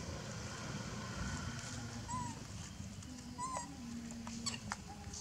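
Two short, arched animal calls about a second and a half apart, over a steady low outdoor rumble, with a few light clicks near the end.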